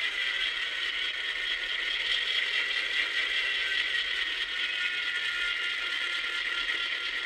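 N-scale model diesel locomotive fitted with an ESU LokSound DCC sound decoder, running with a steady tinny engine sound from its tiny speaker, mixed with the whirr of its motor and gears.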